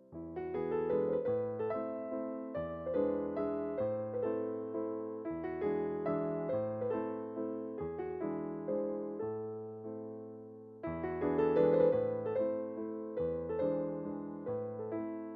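Background music: a gentle piano melody, notes struck and fading in a steady rhythm, softer for a few seconds past the middle.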